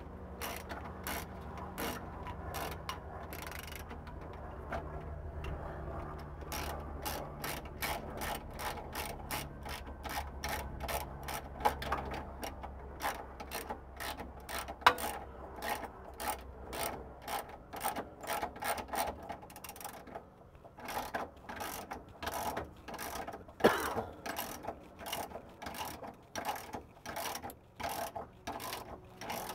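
Hand socket ratchet clicking in runs of a few clicks a second, with short pauses, as the bolts that hold a differential centre to the car's frame are run in and tightened by hand.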